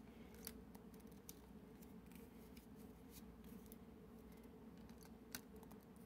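Near silence: low room tone with a few faint, short clicks, the clearest one near the end.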